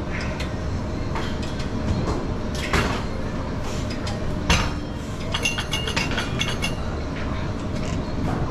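Gym background: a steady low rumble with scattered metallic clinks and clanks of weights, the sharpest about two and a half and four and a half seconds in, and a run of short ringing clinks a little later.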